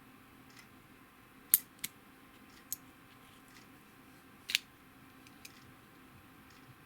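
A few sharp metallic clicks from handling an antique folding knife with a steel lock and blade. The loudest clicks come about one and a half seconds in and again about four and a half seconds in.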